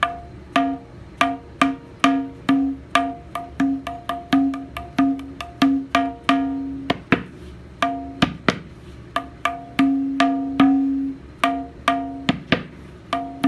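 Tabla being played in a steady stream of strokes, about two to three a second. Many strokes on the right-hand drum ring on with a clear pitch, others are damped short, and a couple of deeper strokes land about seven and eight and a half seconds in.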